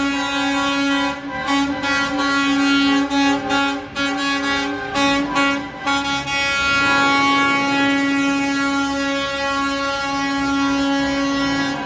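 Tractor-trailer air horn blowing: a run of short blasts with brief gaps, then about six seconds in a single long held blast.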